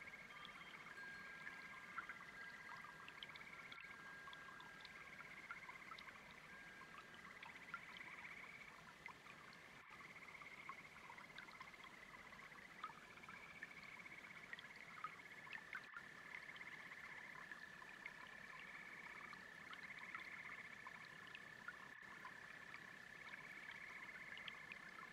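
Faint chorus of frogs and toads: long, steady trills and pulsing calls overlapping one another, over the faint rush of a babbling brook.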